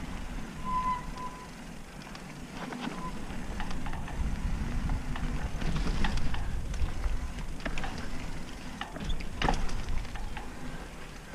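Mountain bike riding fast down a dirt singletrack: a steady rumble of wind on the microphone and tyres on the trail, with scattered clicks and rattles from the bike over bumps and a brief squeak about a second in.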